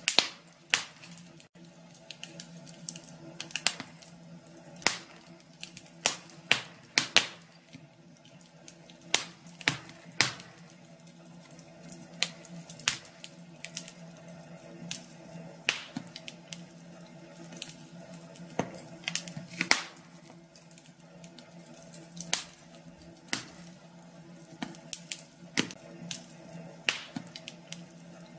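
Wood fire crackling in a fireplace: irregular sharp pops and snaps, a few every second, over a soft steady hiss.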